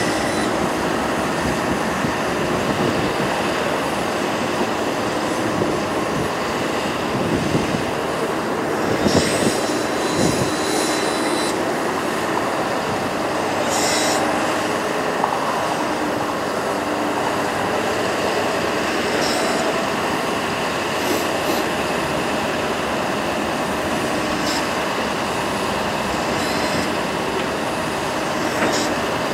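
Ford F-550 bucket truck running with its PTO engaged, driving the hydraulics as the ETI aerial boom is lowered toward its stowed position: a steady mechanical drone, with brief high squeals a few times.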